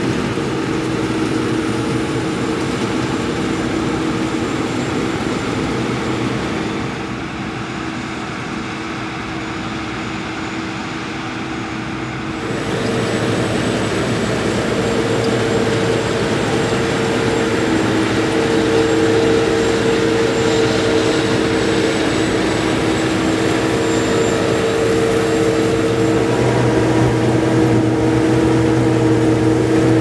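Claas Lexion 560 Terra-Trac combine harvester running under load while harvesting barley: a steady machine drone with a steady whine over it. It dips a little about seven seconds in and grows louder about twelve seconds in.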